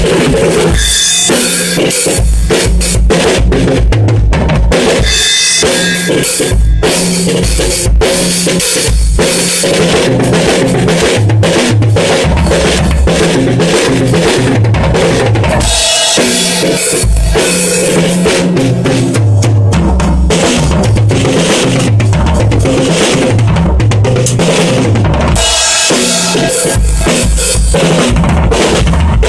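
Drum kit played solo with sticks: steady, fast single-stroke snare hits over bass-drum kicks, with cymbals, loud and unbroken.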